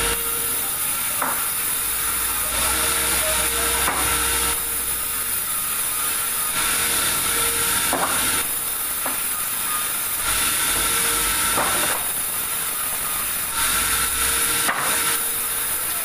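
Large sawmill band saw cutting a big meranti log: a steady high hiss over a machine hum that shifts in tone every couple of seconds, with several sharp knocks along the way.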